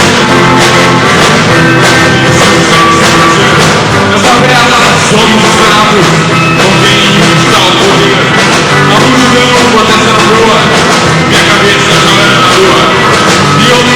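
Live rock band playing a song at full volume, recorded close to the top of the camera's range.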